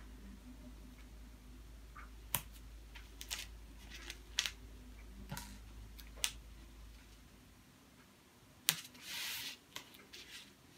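Masking tape being laid and pressed onto a terry-cloth towel: a few soft clicks and taps, about one a second, and a short rustle near the end as hands smooth the towel.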